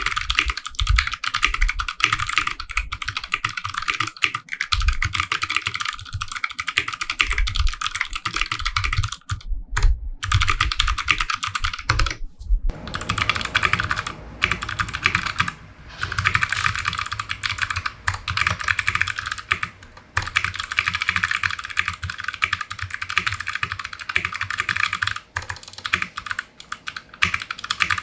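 Typing on a custom 60% mechanical keyboard with clicky Kailh Box White switches on a brass plate: a fast, continuous stream of crisp key clicks, with a brief pause near the middle.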